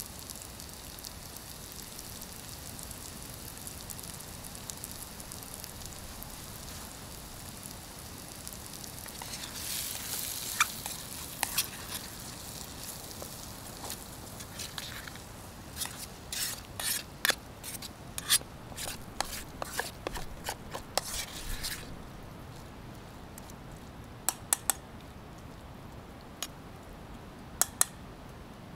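Food sizzling in a pan, with a dense run of sharp clicks and scrapes of a utensil against the pan in the middle stretch, then a few scattered clicks near the end.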